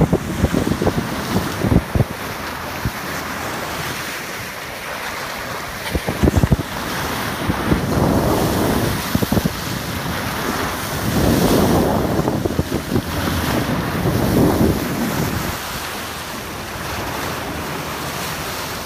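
Sea water rushing and splashing along a moving boat, with wind buffeting the microphone in gusts. There are sharp buffets near the start and about six seconds in.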